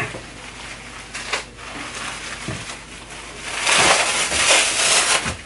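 Layers of plastic cling wrap (Saran wrap) crinkling as they are pulled off a person's waist and legs, loudest for about a second and a half near the end.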